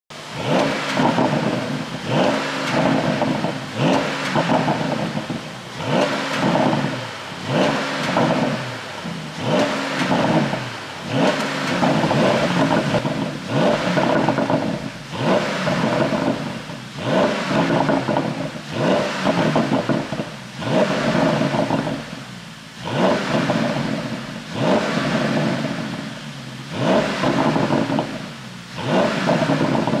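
Porsche Panamera GTS's twin-turbo V8 free-revved in quick blips, about one a second, each rising and falling away, through an exhaust tuned by ECU remap to pop as the revs drop.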